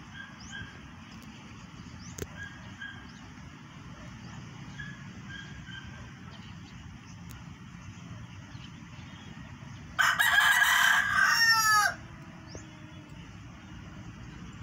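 A rooster crows once, loud and about two seconds long, about ten seconds in. The crow ends in falling notes.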